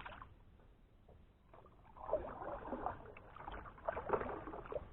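Irregular knocking, rubbing and water splashing around a fishing kayak, in uneven clusters with a few sharp clicks, after a quiet first second or so.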